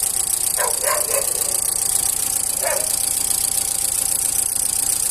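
A dog barking, two or three quick barks about a second in and one more near three seconds, over a car engine idling steadily.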